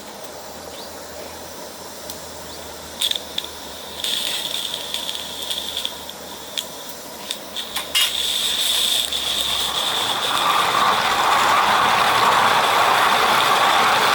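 A 16mm-scale live steam garden locomotive running on 32mm-gauge track, with its regulator opened for an uphill gradient. There are scattered light clicks first, then a steady steam hiss that grows louder about eight to ten seconds in.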